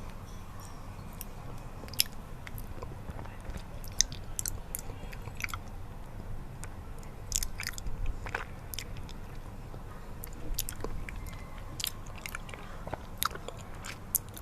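Close-miked mouth sounds of someone eating honey: irregular sticky, wet clicks and smacks of chewing, over a steady low background hiss.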